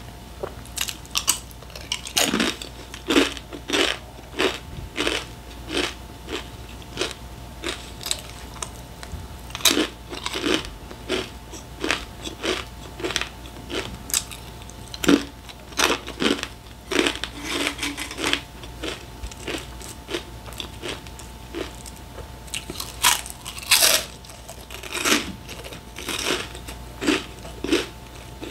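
Close-up crunching and chewing of crisp fried snacks, with sharp, irregular crunches about once or twice a second.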